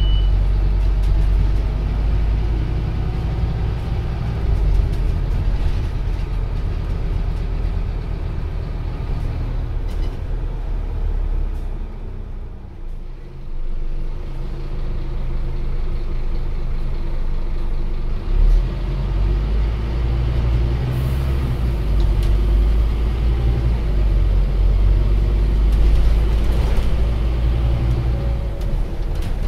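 Inside a Scania OmniCity single-deck bus: its five-cylinder diesel engine and driveline run in a steady low drone, quieten for a couple of seconds about twelve seconds in, then pull strongly again. A short high bell tone sounds at the very start, and a thump comes about eighteen seconds in.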